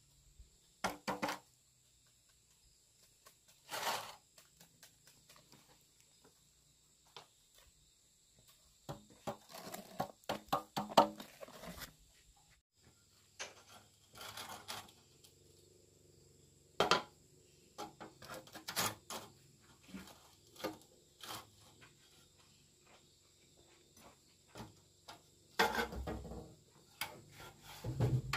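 Scattered knocks, taps and scraping of hard objects being handled, in irregular clusters with short quiet gaps between them.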